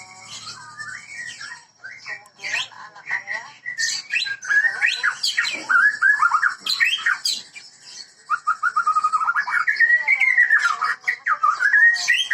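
White-rumped shama (murai batu, Medan strain) singing a varied run of whistled phrases with rising and falling glides, quieter at first and fuller from a few seconds in.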